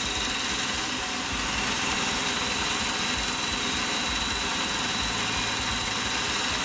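Milling machine running as a large milling cutter takes an angled cut across a brass block: a steady mechanical noise with the cutting chatter of the brass.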